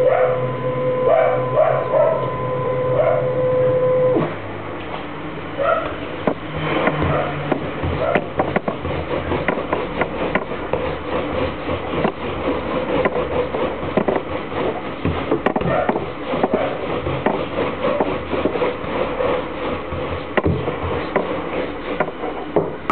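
CNC router's spindle running with a steady high whine that cuts off suddenly about four seconds in, while a dog barks a few times. Then a wire-bristle hand brush sweeps sawdust off the freshly carved board in many short scratchy strokes.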